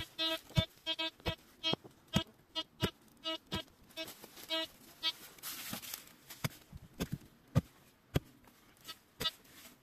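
Short electronic-sounding beeps at one steady pitch, about two a second through the first five seconds, mixed with sharp knocks that carry on to the end. The loudest knock comes about seven and a half seconds in.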